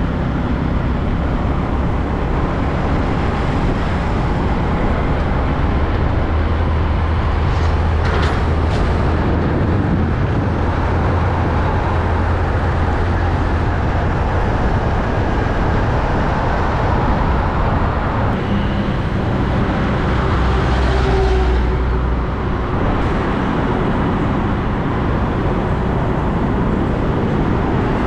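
Road traffic with heavy semi-trailer trucks driving past: a steady, loud low diesel rumble mixed with road noise.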